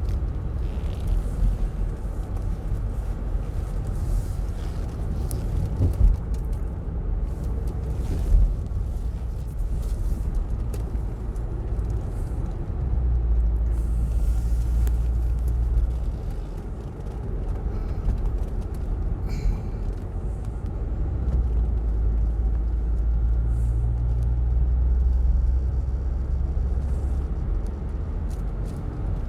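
Car driving on a winding mountain road, heard from inside the cabin: a steady low rumble of road and engine noise that swells and eases a little. Two short knocks stand out, one about six seconds in and one a couple of seconds later.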